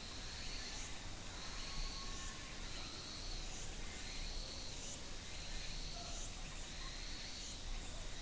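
Insects calling: a high buzzing call about half a second long, repeating roughly once a second over a steady hiss and a low rumble.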